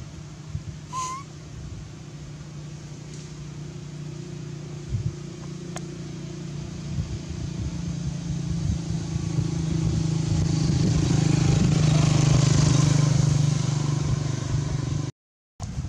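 A motor vehicle on the road, its engine running with a steady low hum that grows louder as it draws nearer, loudest about twelve seconds in. A brief high squeak sounds about a second in.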